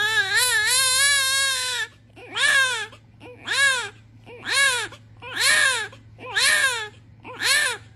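Newborn baby crying: one long, wavering wail of about two seconds, then a run of short cries, each rising and falling in pitch, about one a second.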